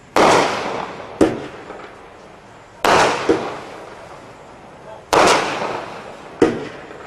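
Standard Fireworks 117-shot single-ignition firework cake firing shot after shot. Three loud bangs, each with a long fading tail, come about every two and a half seconds, with a shorter, sharper crack between each of them.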